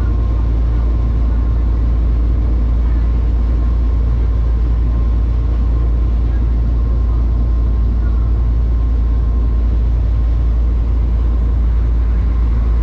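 Steady low rumble of a moving vehicle, unbroken throughout.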